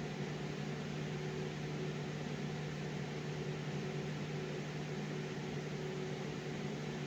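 A steady machine hum with a hiss over it, unchanging, with no knocks or other events.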